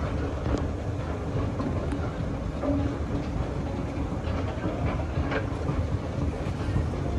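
Otis escalator running: a steady low rumble with faint scattered clicks.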